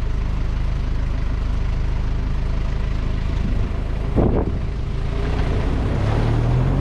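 Vehicle engine running at low speed while the vehicle reverses, with a short bump about four seconds in and the engine note rising near the end.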